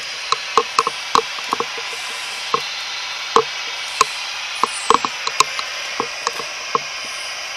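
Steady radio static hiss from a scanner sweeping the radio frequencies, with an irregular scatter of sharp clicks and ticks over it.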